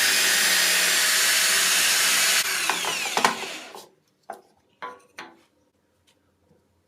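Electric drill, rigged as a homemade milling machine, running at full speed, then switched off about two and a half seconds in and winding down with a falling whine. Three light knocks follow about a second later.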